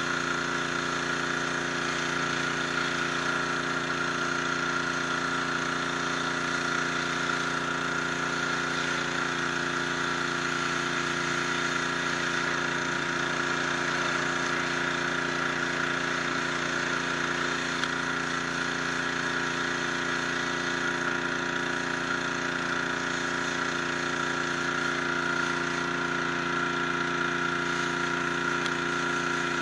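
High-pressure washer running steadily, its water jet hissing against the stone base and step of a Soignies blue-stone monument.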